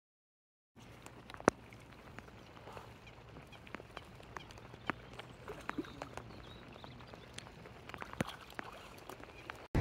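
Rain falling on a lake: scattered sharp drops pattering on the water and close surfaces at irregular intervals, starting about a second in after dead silence.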